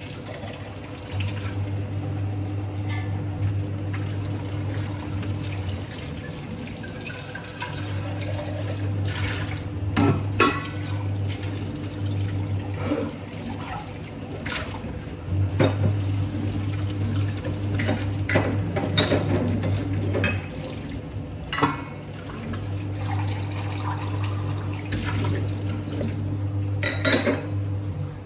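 Stovetop moka pot on the boil, gurgling and sputtering in irregular spurts as the coffee is forced up into the upper chamber. A low hum switches on and off every few seconds underneath.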